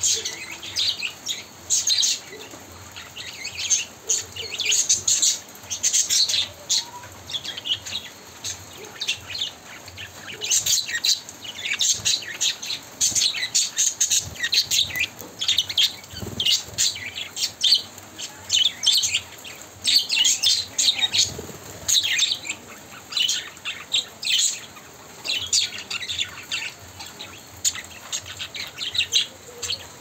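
Pet budgerigars chirping and chattering in a cage: a steady run of short, high calls, busiest in the middle and latter part.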